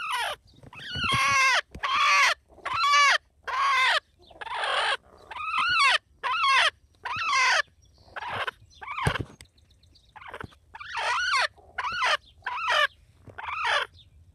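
Chickens calling over and over, about one to two loud calls a second, each call rising then falling in pitch.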